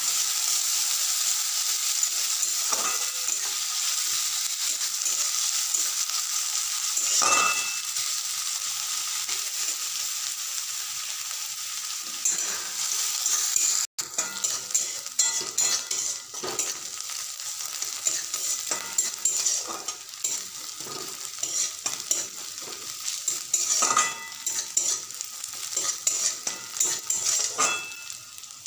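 Chopped onions sizzling in hot oil in a metal kadai while a flat metal spatula stirs and scrapes them against the pan, the onions frying toward golden brown. The steady sizzle carries short scrape strokes, which come more often in the second half; the sound drops out for an instant about halfway through.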